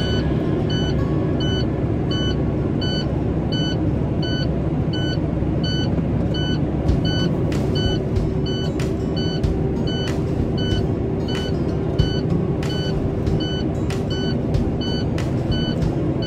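A short electronic beep repeating evenly, about three every two seconds, over the steady rumble of a running vehicle. Occasional clicks or knocks sound in the second half.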